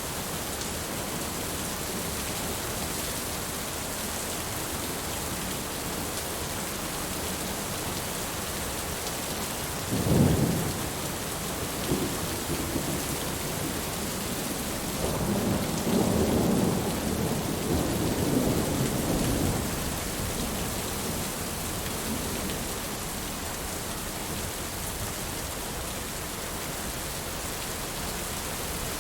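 Heavy rain falling steadily, with a sharp thunderclap about ten seconds in and a longer rolling rumble of thunder from about fifteen to twenty seconds in.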